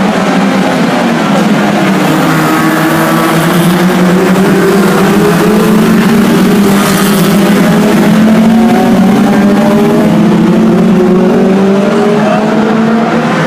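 A pack of BriSCA Formula 2 stock cars racing, several engines revving up and down together as they lap the oval. The sound is loud throughout and briefly louder as the pack passes close about halfway through.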